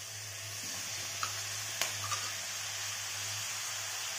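Chopped bell peppers sizzling in hot oil in a nonstick kadhai as they are tipped in and moved with a spatula, with a few light clicks of pieces and spatula against the pan about one and two seconds in.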